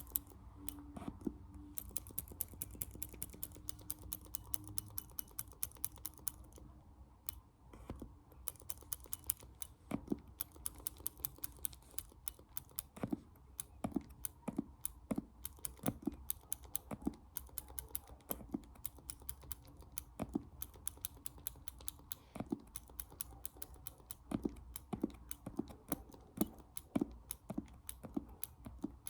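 Fast ASMR tapping with the fingers: a dense, rapid patter of light clicks with harder taps standing out every half second or so, thinning briefly about a third of the way in.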